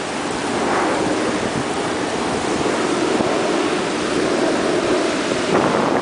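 Ocean surf washing in over a rocky tide-pool reef at low tide, a steady rushing that swells briefly near the end, with some wind on the microphone.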